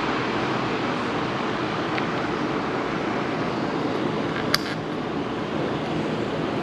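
Steady road and engine noise of a car being driven, heard as an even rush, with one sharp click about four and a half seconds in.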